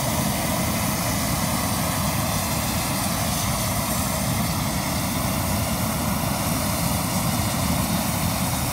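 Hot air balloon's propane burner firing in one long blast: a loud, steady roar.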